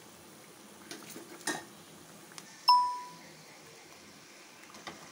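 A steel slotted spoon clicks against the frying pan a few times as fried pieces are lifted from the oil, over a faint sizzle. About two and a half seconds in, a single loud bell-like notification ding rings out and fades.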